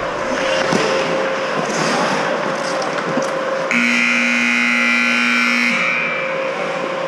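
Ice rink arena horn sounding one steady blast of about two seconds, starting about halfway through, over ongoing rink noise; it likely marks the end of the period.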